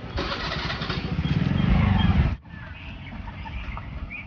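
A motor vehicle engine running close by, growing louder over the first two seconds, then cutting off abruptly about two and a half seconds in, leaving a faint background.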